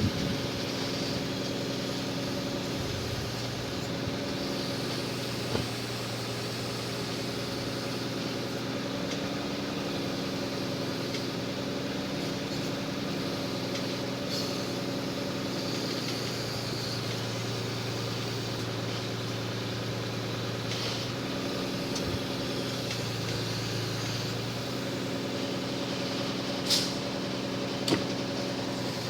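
Engine powering a Munck GFT 10.000 forestry loader, running steadily, its note dipping and rising slightly now and then. Two sharp knocks come near the end.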